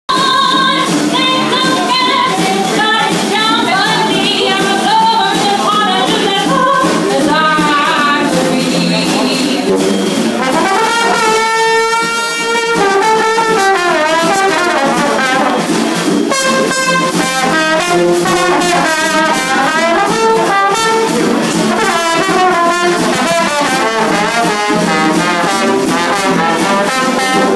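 Live jazz band playing: a sousaphone and a drum kit with cymbals keeping a steady beat, a brass-led melody on top.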